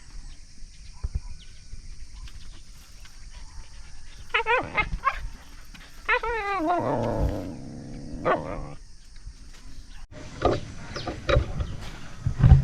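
Husky dog vocalizing: two drawn-out calls with a wavering pitch a few seconds apart, the second longer and warbling. After them come a few scattered clicks and knocks.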